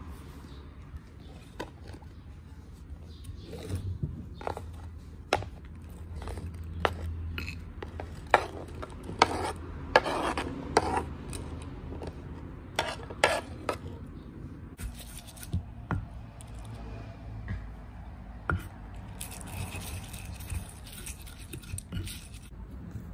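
A kitchen knife scrapes chopped vegetables off a wooden tray into a stone mortar, with a string of sharp clicks and knocks as the blade and pieces strike the board and stone. Near the end a stone pestle starts scraping and grinding in the mortar.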